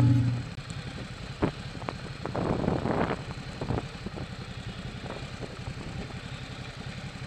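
Motorcycle engine running steadily at low speed as the bike rolls slowly over loose gravel, with a crunching clatter from the stones about two to three seconds in.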